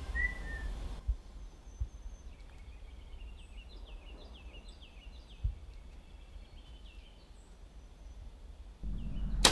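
Quiet woodland ambience: a small songbird calls in a run of short rising chirps over a low rumble, with a few soft thumps. Just before the end a sudden loud rustling noise starts.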